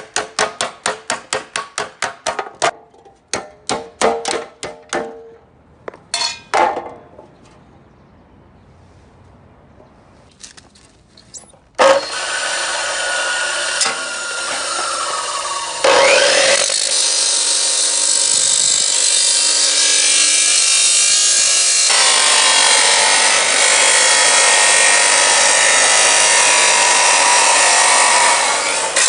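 Rapid sharp strikes, about four a second, like hammering, for the first few seconds, then a few scattered knocks. About twelve seconds in, a loud, steady sawing or grinding noise of a tool working material starts suddenly and runs on.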